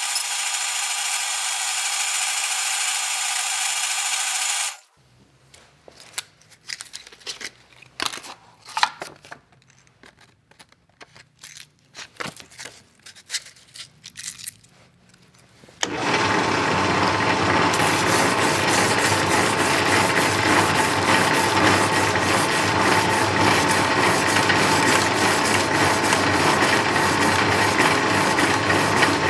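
Homemade motor-driven knife-maker's sanding machine running, stroking a sanding block back and forth along a steel knife blade. It stops suddenly about five seconds in, and for about ten seconds there are clicks and knocks as the block is handled and refitted on the blade. It starts again about sixteen seconds in and runs steadily with a fast, even rhythm of strokes.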